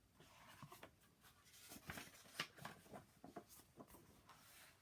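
Faint paper rustling with a run of soft, irregular clicks: the pages of a picture book being handled and turned.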